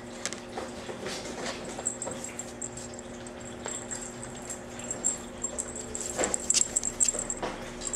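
A Maine Coon kitten's paws and claws tapping and scrabbling on a smooth tabletop as it moves about, with sharp clicks coming thicker and louder between about six and seven and a half seconds in. A steady low hum runs underneath.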